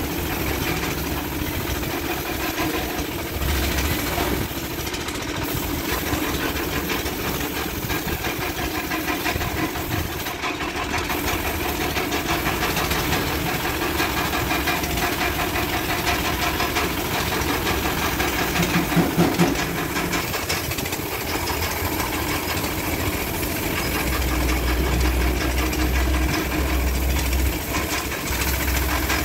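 Air compressor running steadily with a chugging knock, under the hiss of a gravity-feed paint spray gun spraying paint.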